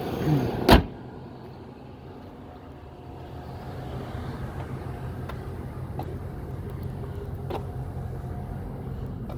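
Chevrolet Tahoe V8 engine running at a steady idle, with one sharp knock just under a second in.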